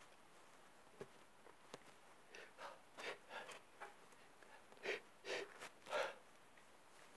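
A man's sneeze build-up: a run of short, breathy sniffs and catching gasps starting about two seconds in, growing stronger toward the end.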